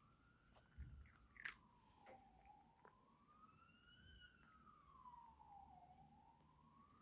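Faint sound of a cat crunching small dry treats, with a few sharp crunches about one and a half seconds in. Behind it, a faint emergency siren wails slowly up and down.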